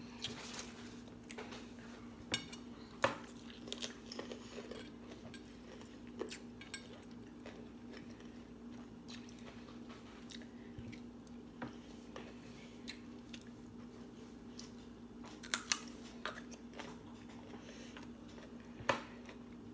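Food being chewed close to the microphone, with a few sharp, crisp bites and clicks scattered through, the loudest about three seconds in and near the end, over a faint steady low hum.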